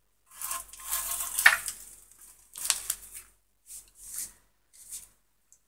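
Handling noise: rustling and scraping with light knocks, in several short bursts, the longest first, with a sharp click about one and a half seconds in.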